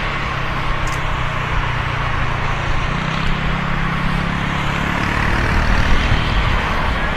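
An engine running steadily under a broad rushing noise, its low hum stepping up in pitch about three seconds in and settling back down about two seconds later.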